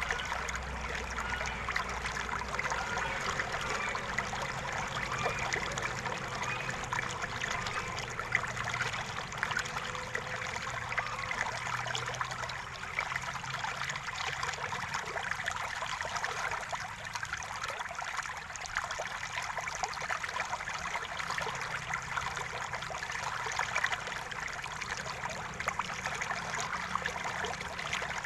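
River water flowing and babbling steadily over rocks, a continuous splashing and trickling.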